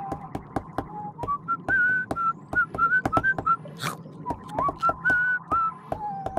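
A cheerful tune whistled as a single melodic line with short upward slides, over a steady light clicking beat.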